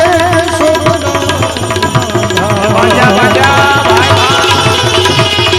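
Indian folk devotional music between sung lines: tabla keeping a steady rhythm under a melody with wavering, sliding notes.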